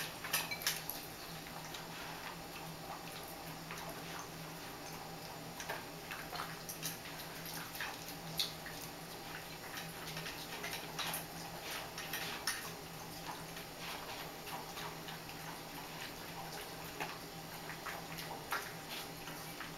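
A dog eating dry kibble from a ceramic bowl: irregular crunching and clinks of kibble against the bowl, over a faint steady low hum.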